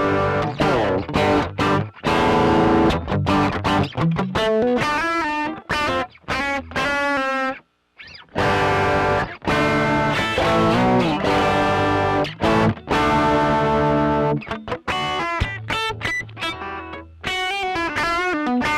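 Electric guitar played with a distorted tone: lead lines and chords with string bends and wide vibrato, and a brief break about eight seconds in.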